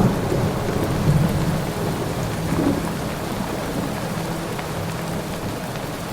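Rain sound effect: steady rain with a low rumble underneath, slowly fading.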